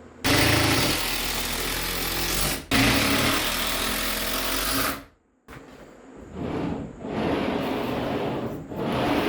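Bandsaw running and cutting through a log, the noise starting and stopping abruptly in short clips with a brief silence about five seconds in.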